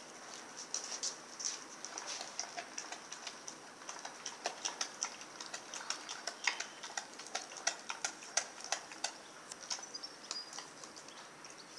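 A Rottweiler gnawing at a whole raw, frozen turkey: irregular clicks and crunches of teeth on the hard bird, coming thickest from about four to nine seconds in.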